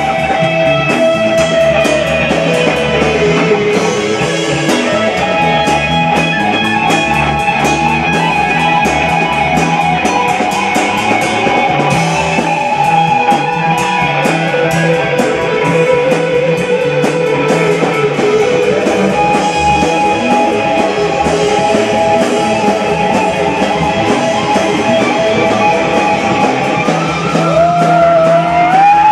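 Live rock band playing: electric guitars, bass guitar and drum kit, with held notes that bend in pitch over steady cymbal hits.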